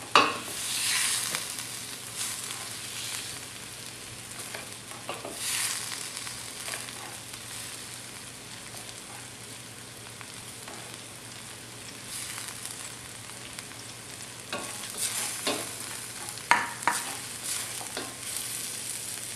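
Food sizzling in a hot frying pan while being stirred, with sharp clinks of a utensil against the pan, the loudest just at the start and another about sixteen and a half seconds in.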